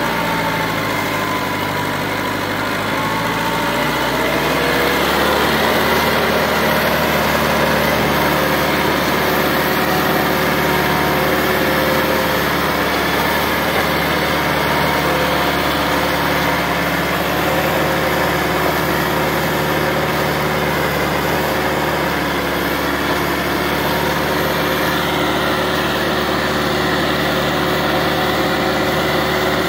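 Massey Ferguson 385 tractor's diesel engine running hard under heavy load, pulling an overloaded sugarcane trolley. The engine note rises slightly and grows a little louder about four seconds in, then holds steady.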